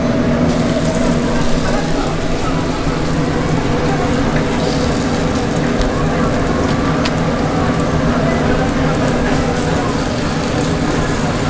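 Mung bean pancake batter sizzling in oil on a flat griddle, a steady frying hiss, with a ladle setting more batter down on the hot surface.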